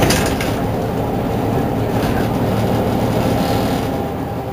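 Mercedes-Benz Citaro G C2 articulated bus standing at a stop with its engine idling, a steady low hum. A brief hiss comes right at the start and a fainter one about three and a half seconds in.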